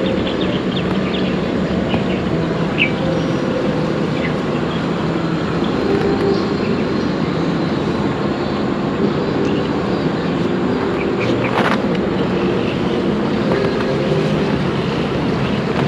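An engine running steadily: a low, even hum over a noisy rumble, with one brief knock about two-thirds of the way through.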